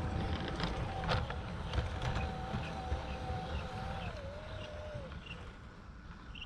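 G gauge model train running on a garden railway: a low rumble with scattered light clicks and a steady motor whine that dips in pitch and stops about five seconds in. The sound grows slowly fainter.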